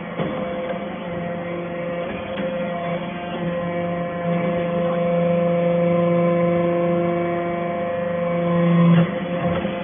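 Hydraulic power unit of a steel-chip baler running with a steady hum that grows louder over several seconds, then drops suddenly about nine seconds in.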